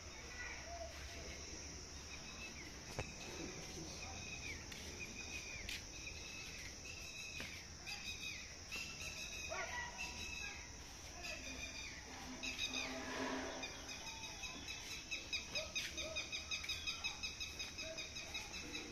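Birds chirping in short calls, turning into a quick run of repeated calls, about three a second, over the last few seconds.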